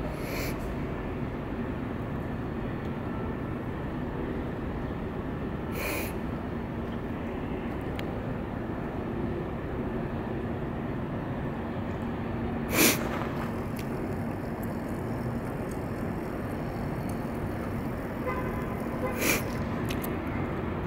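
Steady city background rumble with a constant low hum, broken by four brief hisses spread through, the loudest about two-thirds of the way in.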